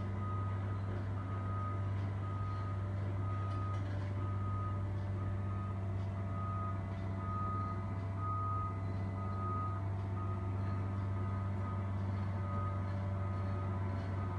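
Heavy diesel engine running steadily with a reversing alarm beeping about once a second, from a hydraulic excavator with a pipe-handling grapple at work.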